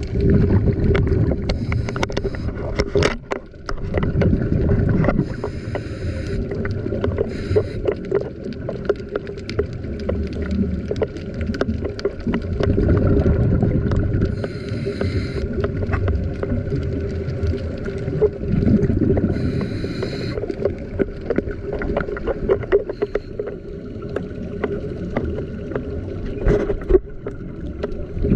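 Muffled rumbling and crackling of water and bubbles as heard through an underwater camera during a scuba dive, over a steady engine hum. A breathy hiss comes in three times, about 6, 14 and 19 seconds in.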